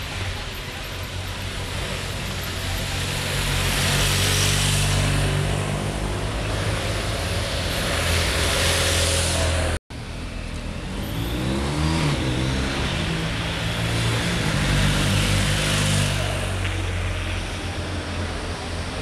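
Motor vehicles passing one after another on a street, each swelling and fading with engine hum and tyre noise, one with a falling engine pitch as it goes by. The sound cuts out for an instant about halfway.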